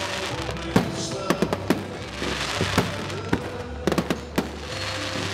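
Aerial firework shells bursting in a run of sharp bangs, several close together about four seconds in, with music playing underneath.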